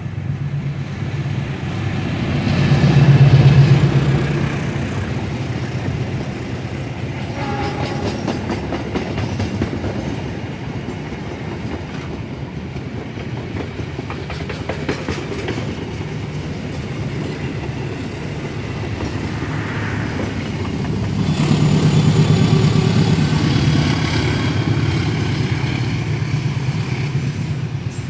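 A diesel-electric locomotive passes close, its engine rumble loudest about three seconds in, followed by the steady rolling clatter of passenger coach wheels on the rails. A second swell of locomotive and wheel noise comes about three-quarters of the way through as a container freight train runs past.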